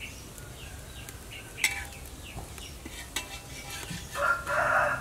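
Chickens in the yard: short high chirps and clucks throughout, then a rooster crowing, the loudest sound, about four seconds in.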